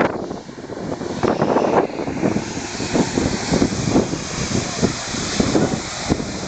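Wind buffeting the microphone in irregular gusts over the roar of a twin-engine jet airliner's engines: jet blast from the airliner behind the runway fence.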